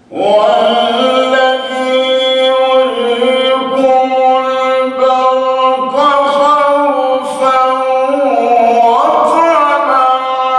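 A man's voice reciting the Quran in the melodic tajweed style, starting suddenly and held in long drawn-out notes with ornamented turns of pitch.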